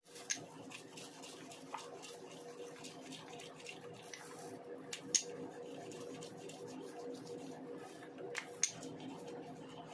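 Wooden rolling pin rolling thin dough on a floured silicone mat: soft rubbing with a few light taps and clicks, over a faint steady hum.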